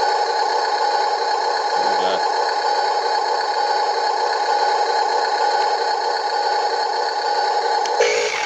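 Huina 1573 RC dump truck's built-in sound module playing a simulated truck engine running, a steady electronic drone through its small speaker. There are a couple of brief knocks, about two seconds in and near the end.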